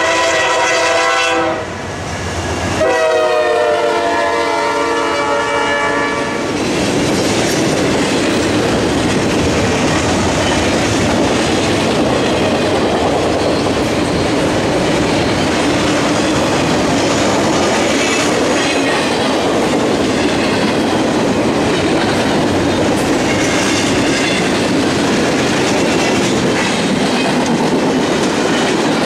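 Norfolk Southern diesel freight locomotive's air horn sounding a chord twice, a short blast and then a longer one whose pitch drops slightly as the engines pass. Then a steady rumble and clickety-clack of double-stack container cars and freight cars rolling by on the rails.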